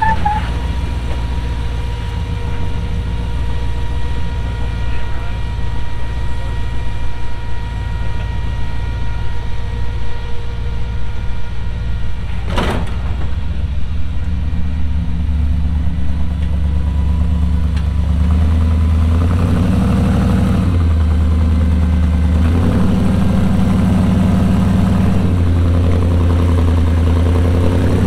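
Supercharged 454 big-block V8 (6-71 blower) of an off-road tow truck running at low speed as the truck crawls up rock. In the second half the revs rise and fall several times under throttle. A single sharp knock is heard about halfway through.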